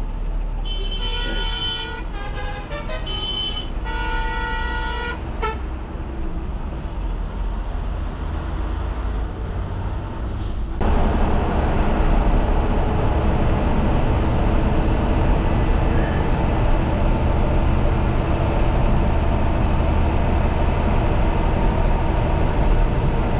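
A vehicle horn sounds in several blasts during the first five seconds, over the running engine and road noise heard inside a bus cab. About eleven seconds in, the engine and road noise turns abruptly louder and stays steady as the bus runs at highway speed.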